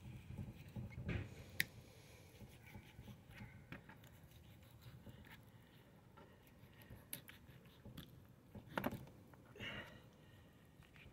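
Knife cutting through raw flathead catfish into steaks on a plastic lid: faint scraping with scattered small clicks and taps, a sharper tap about one and a half seconds in and a few more near the end.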